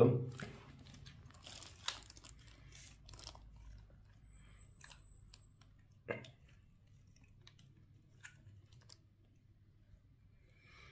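Light plastic clicks, taps and rattles from the nozzle head and attachment parts of a Kiwi KCC-4320 carpet and upholstery washer being handled and worked loose. The clicks are busiest in the first few seconds, with one louder knock about six seconds in.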